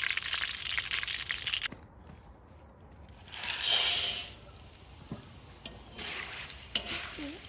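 Sizzling that cuts off about two seconds in. Then a loud, brief rush and rattle as raw popcorn kernels are poured into the hot oiled cast-iron kazan, followed by a few light clicks and scrapes of a wire skimmer spreading the kernels over the metal.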